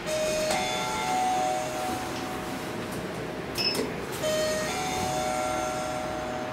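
Elevator gong sounding a rising two-note chime, ding-dong, then again about four seconds later just after a short button beep. The bell chimes at every call, floor selection and door event, which the rider finds annoying and calls broken.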